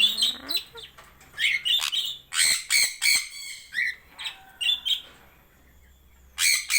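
Parrots giving a string of short, harsh squawks and chirps in quick runs. The calls fall quiet for about a second and a half, then a fresh burst starts near the end.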